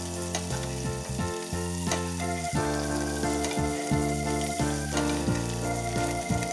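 Peppercorn-crusted steak sizzling in hot oil and foaming butter in a frying pan as it is spoon-basted. Background music with sustained chords plays under it.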